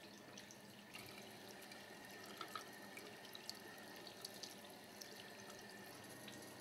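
Faint thin stream of water running from a bathroom faucet into the sink, with small splashes and drips as hands are rubbed under it.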